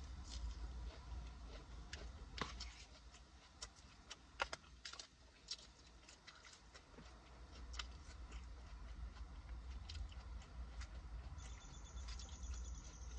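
Faint eating sounds: chewing salad, with scattered clicks of a plastic fork against a plastic bowl, the sharpest about four seconds in, over a steady low hum. A faint high steady tone sounds for about two seconds near the end.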